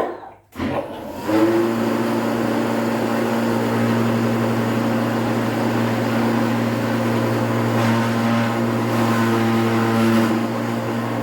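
Electric clog-hollowing machine, used to carve out the inside of a wooden clog, starting with a sharp clunk. Its motor comes up about half a second in and runs loud and steady with a strong hum.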